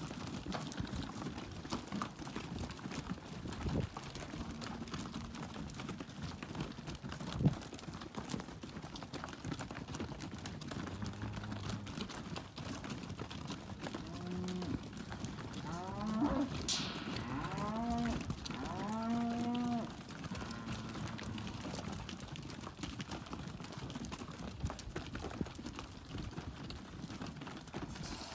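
Angus steers mooing: a run of short calls about halfway through, each rising then falling in pitch, over a steady low background noise, with one sharp click a few seconds earlier.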